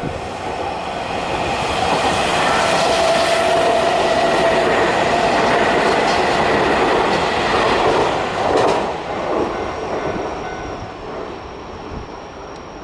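Keio Inokashira Line electric commuter train passing over a level crossing: rumble and wheel clatter build over the first couple of seconds, stay loud, then drop away about nine seconds in.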